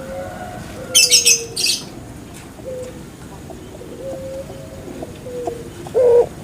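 Puter pelung (Barbary dove) giving short, soft low coos. About a second in comes a loud burst of rapid high chirps, and a louder coo follows near the end.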